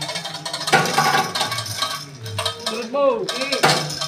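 Metal clinking and clanking as a large bronze ship propeller, slung from a rope and chain, is handled and shifted by hand, in a run of sharp knocks.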